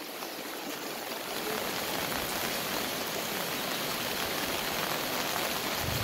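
Floodwater rushing down a street: a steady rushing hiss of fast-flowing water, fading in over the first second or so.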